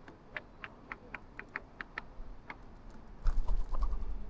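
A quick run of light, sharp taps, about four a second, then a low rumble that sets in about three seconds in and is the loudest part.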